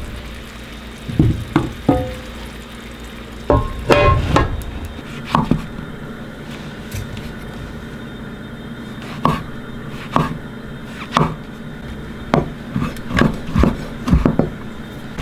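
A kitchen knife slicing puffball and chanterelle mushrooms on a wooden cutting board, the blade knocking the board in a run of sharp taps, about two a second in the second half. Earlier come a few scattered clinks, some with a short ring.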